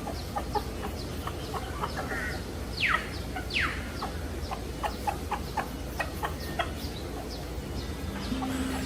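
Birds calling: a steady scatter of short, sharp calls, with two quick downward-sweeping calls about three seconds in.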